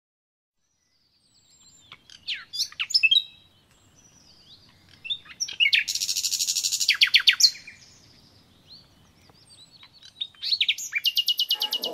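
Small birds singing: short high chirps and downward-sweeping calls. A fast rattling trill comes around six seconds in, and another near the end.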